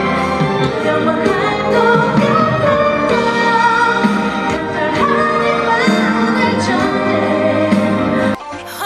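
Female K-pop vocalist singing a ballad over full band accompaniment, holding high notes with vibrato. The recording cuts abruptly to another clip near the end.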